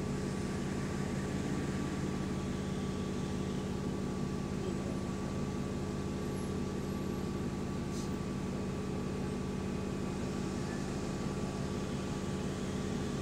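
Bus ABL 9536's engine cooling fan running with a steady drone, heard from inside the standing bus.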